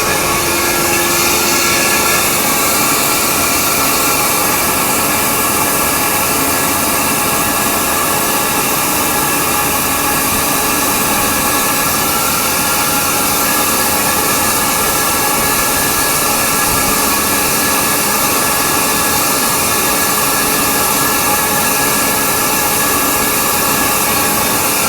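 250 hp two-stage rotary screw air compressor running steadily: a loud, even hiss with several steady high tones over it.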